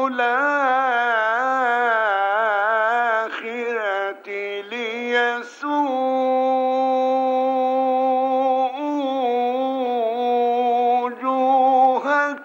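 A male reciter chanting Quranic verses in the melodic tajweed style, drawing the words out into long ornamented phrases. He breaks off for breath about four seconds in, then holds one long steady tone.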